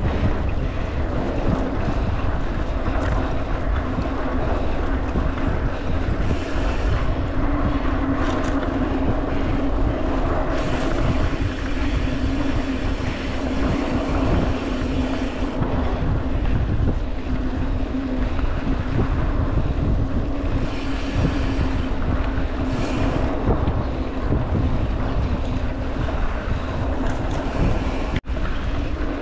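Wind buffeting the microphone and tyre rumble from a mountain bike riding along a dirt trail, steady throughout, with a brief cut-out near the end.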